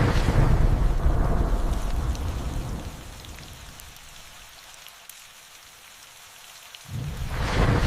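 Steady rain falling, with a rolling thunder rumble at the start that fades away over about three seconds, and a second peal of thunder breaking in sharply near the end.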